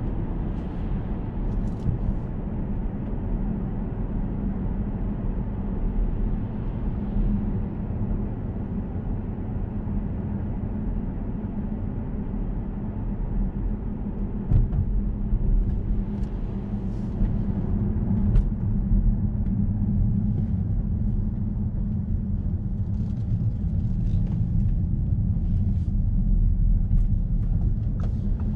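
Steady low rumble of a 2014 Audi S6 Avant's 4.0 TFSI twin-turbo V8 and the road, heard from inside the cabin while cruising at town speed.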